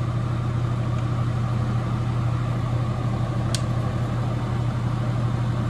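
Airbrush paint booth exhaust fan running with a steady hum, with a single light click about three and a half seconds in.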